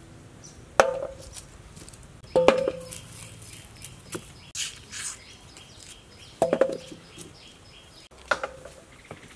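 A few sharp metallic clinks, each ringing briefly, from ingredients and utensils knocking against a metal bowl or pan. Birds chirp quickly and high in the background.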